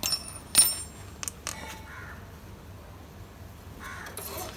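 Metal tools clinking and knocking against motorcycle rear-wheel parts during brake-shoe removal: a few sharp strikes, the first with a brief metallic ring and the loudest about half a second in. Faint calls sound in the background.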